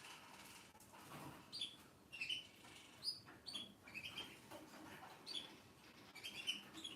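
Faint chirping of small birds: short, quick downward chirps repeated irregularly, a few each second.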